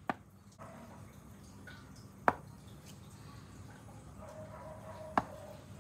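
A cleaver slicing down through a block of silken tofu, the blade knocking on a plastic cutting board three times, about two to three seconds apart.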